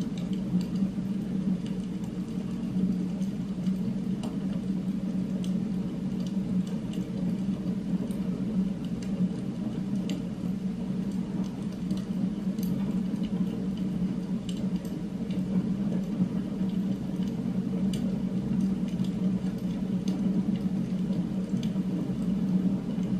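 Steady low hum of background ambience dubbed over the footage. Faint scattered ticks and rubbing come from gloved hands handling a metal ballpoint pen.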